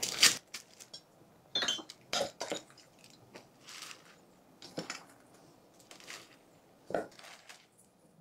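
A metal measuring cup scraping and clinking against a stainless steel mixing bowl as a dry cocoa-and-sugar mix is scooped out and poured into a plastic zipper bag: a series of short, irregular scrapes and clinks with a brief soft pour of dry mix.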